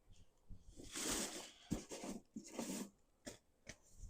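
Plastic packaging being handled and torn open: irregular crinkling and tearing bursts with a few sharp clicks in between.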